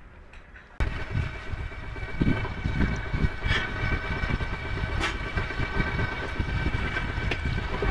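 Electric drive motor of a sailboat's retrofit electric propulsion kit switching on about a second in and running with a steady high whine over a low rushing noise, driving the boat from rest.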